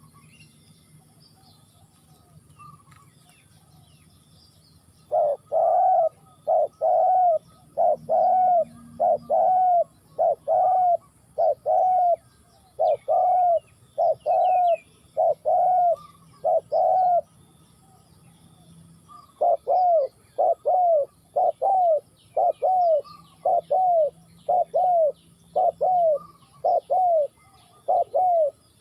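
Spotted dove cooing in long runs of short, evenly spaced notes, a bit more than one a second, starting about five seconds in and pausing briefly near the two-thirds mark. Small birds chirp faintly behind it.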